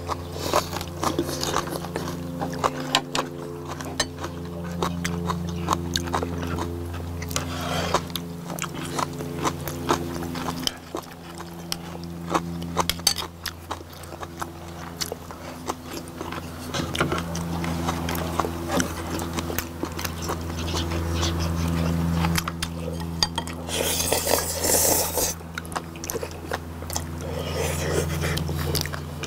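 Mukbang eating sounds: chewing and smacking of braised sea squirts and noodles, with clicks of metal tongs and chopsticks on the dishes, and a louder slurp about 24 seconds in. A low steady hum runs underneath.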